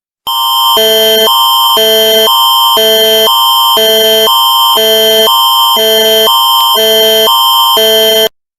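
Canadian Alerting Attention Signal: a loud electronic chord of steady tones that switches back and forth between two pitches about every half second, with one high tone held throughout. It runs for about eight seconds and cuts off abruptly, announcing an emergency alert.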